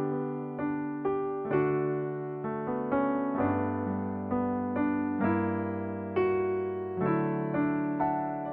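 Background music: an electric piano playing a slow, gentle melody over sustained chords, notes struck every half second or so and left to decay.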